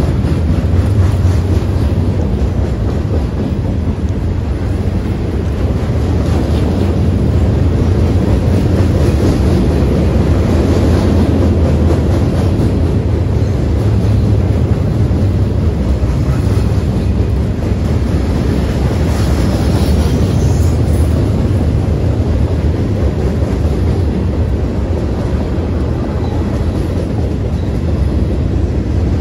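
Freight train passing, its cars rolling by with a steady low rumble.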